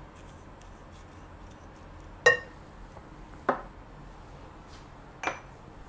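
Dishes clinking, among them a small ceramic spice bowl: three sharp knocks spread over a few seconds, the first ringing briefly.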